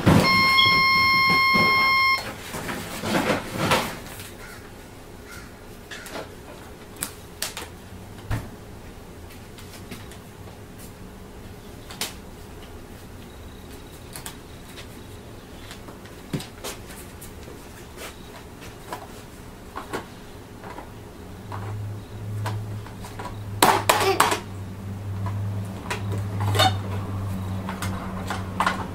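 Toy electronic cash register sounding one steady beep tone for about two seconds. After it come light, scattered plastic clicks and clatters of toy pieces being handled, with a louder cluster of clicks near the end.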